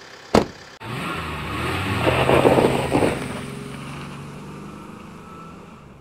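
A sharp thump, then a car engine speeds up as the car pulls away, growing loud and then fading into the distance.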